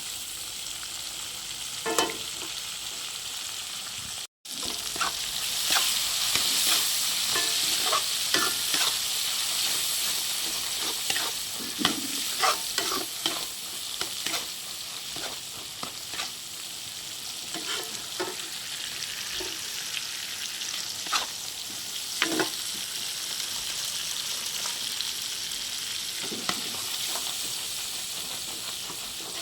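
Fish frying in hot oil in a pan: a steady high sizzle with scattered sharp pops and clicks.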